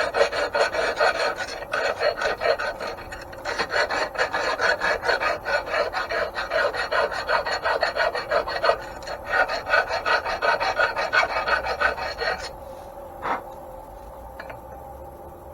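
Hand file rasping in quick, repeated strokes on a metal casting, clearing casting impurities from a bore that is a little too small for its bronze bushing. The filing stops about 12.5 seconds in, and a single short knock follows.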